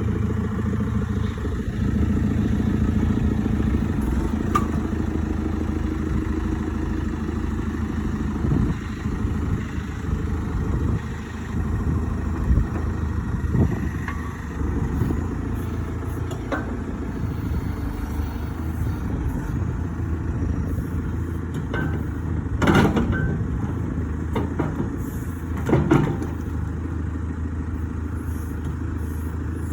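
JCB 3CX backhoe loader's diesel engine running steadily, with a few sharp metallic knocks; the loudest come about 23 and 26 seconds in.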